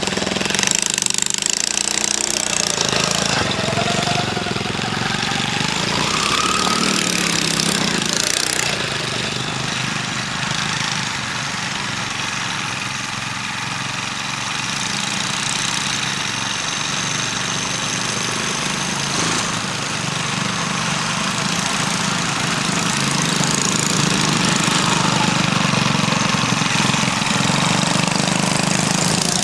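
Four-wheeler (ATV) engine running and revving, its pitch climbing about four to seven seconds in.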